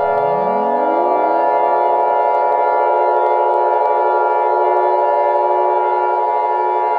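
Siren-like alarm tone of several steady pitches sounding together. A lower tone sweeps up from deep in the first second or so, as a siren winding up.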